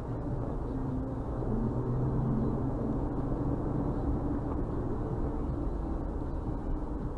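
Steady engine and road noise of a car driving at speed, heard from inside the cabin.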